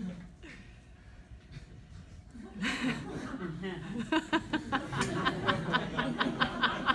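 Audience laughing: after a brief lull, laughter picks up again about two and a half seconds in and runs on in quick rhythmic bursts of chuckling.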